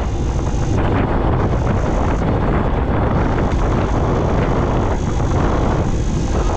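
Heavy wind rumble on the microphone of a camera riding along a road, with the moving vehicle's road noise underneath, steady throughout.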